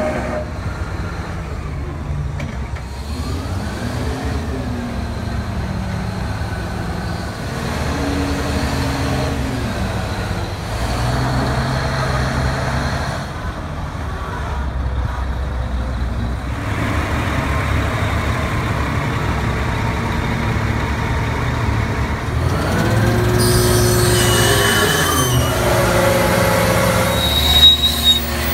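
Diesel engine of a large tracked hydraulic excavator working, its pitch rising and falling several times as it revs up and down under load. A sharp bang near the end.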